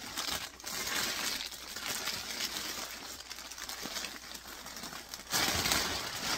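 Thin plastic bag crinkling and rustling as a vacuum-packed bag of yarn skeins is opened and the plastic-wrapped skeins are pulled out, louder near the end.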